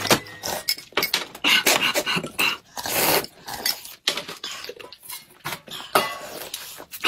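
Close-miked eating sounds: loud slurps of broth drunk straight from a bowl, in irregular bursts, with clinks of chopsticks and tableware.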